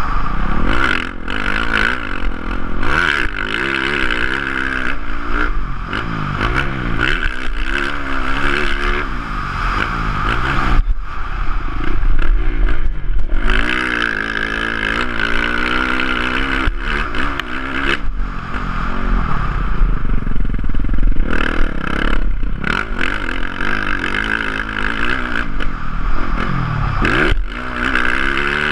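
Motocross dirt bike engine heard from an onboard camera, revving up in repeated rising runs through the gears and dropping back as it is ridden around a dirt track. The engine note cuts out briefly a couple of times where the throttle is shut.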